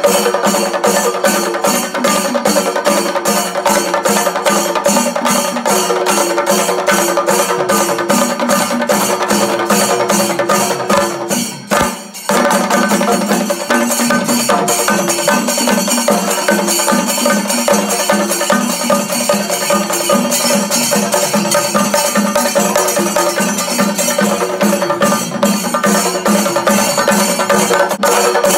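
Music with a fast, steady percussion beat over a held melody; it breaks off for a moment about twelve seconds in.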